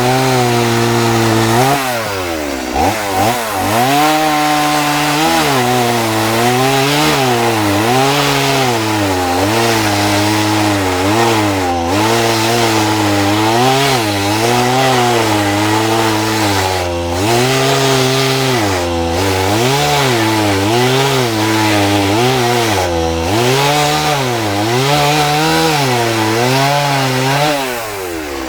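Gas chainsaw fitted with a small carving bar running near full throttle and cutting into a wood block, its pitch sagging and recovering every second or two as the chain bites. The engine drops back briefly about two seconds in and again near the end.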